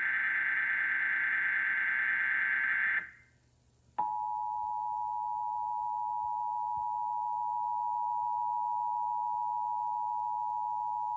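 Emergency Alert System tones. A SAME header data burst, a harsh buzzing digital screech, cuts off about 3 s in. After a second's pause, the two-tone EAS attention signal starts about 4 s in: two steady tones sounding together, held without change.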